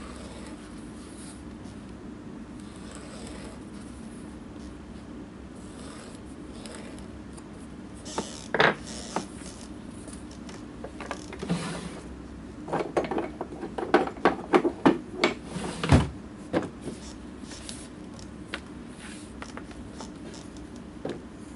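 A leather welt strip and hand tools being handled on a wooden cutting board. Faint rubbing and scraping comes first, then a run of sharp knocks and clacks, loudest about two-thirds of the way through, over a steady low hum.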